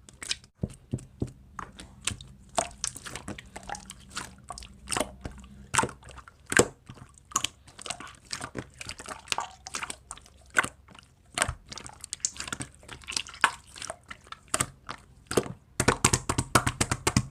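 Slime being squished and poked by hand, giving quick irregular crackling clicks and pops that come thicker near the end.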